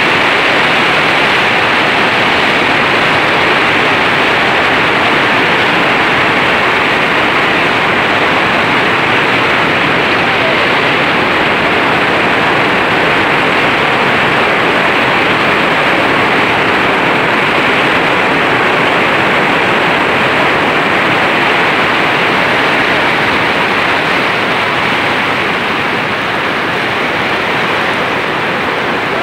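Heavy rain pouring down in a steady loud hiss, easing a little about 25 seconds in.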